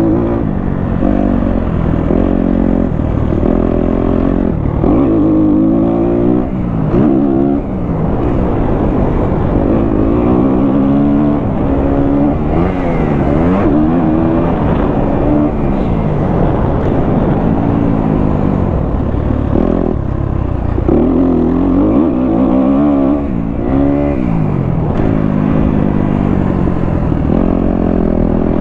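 A 2023 Kawasaki KX250F's single-cylinder four-stroke engine, fitted with a Pro Circuit exhaust, revving hard and backing off over and over as the dirt bike is ridden around a motocross track. The pitch climbs and drops again every second or two, with brief drops in power about seven seconds in and again near the end.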